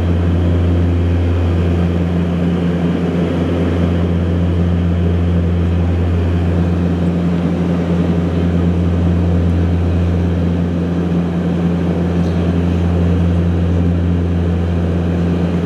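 Cabin noise of an Embraer EMB-120 Brasilia turboprop climbing out after takeoff: a loud, steady, low propeller drone from its Pratt & Whitney PW118 engines, heard from a seat beside the wing.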